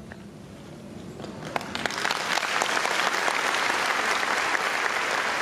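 Audience applauding: a few scattered claps begin about a second and a half in and quickly swell into steady, full applause.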